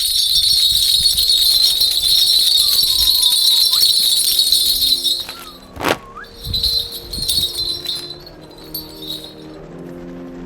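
Shaman's bundle of brass hand bells (bang-ul) shaken in a rapid, continuous jingle for about five seconds. A sharp knock follows, then a few shorter shakes of the bells, and soft music enters near the end.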